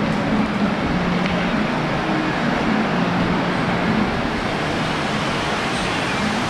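Heavy rain pouring down, a dense, steady hiss that does not let up.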